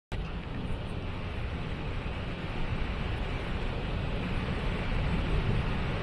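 A large waterfall and the river rushing over its brink: a steady roar of water, heaviest in the low end.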